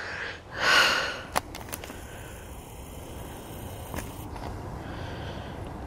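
A person's loud breath out, about a second in, followed by a sharp click. After that comes a steady low rumble of wind on the microphone.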